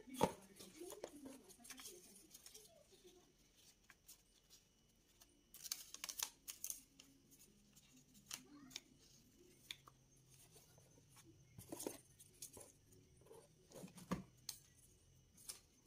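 Quiet handling noises: light clicks and knocks of a Casio HR-8RC printing calculator's plastic case, with short rustles of a paper till roll being unwound and fitted into its printer compartment.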